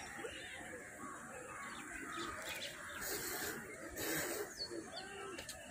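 Small birds chirping faintly over an outdoor background, with two short falling chirps near the end and a couple of brief rustling hisses about three and four seconds in.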